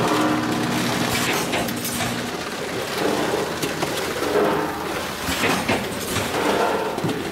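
Vertical form-fill-seal snack packaging machine running, with a steady hum for the first two seconds or so, then mechanical clatter and scattered sharp clicks.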